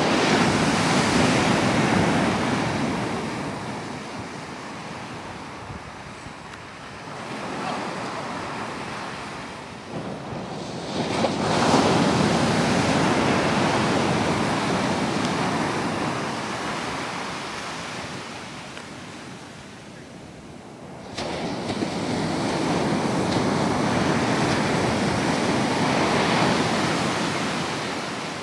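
Ocean surf breaking and washing up a sandy beach, swelling and fading several times as sets of waves come in.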